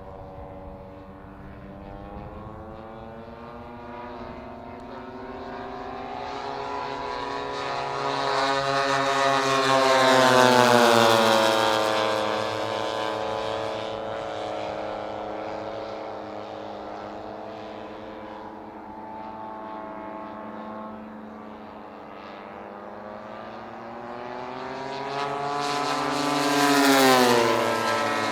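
Radio-controlled scale Grumman F8F Bearcat warbird, propeller engine running as it flies two passes. The sound swells to its loudest about ten seconds in and again near the end, with the pitch falling each time it goes by.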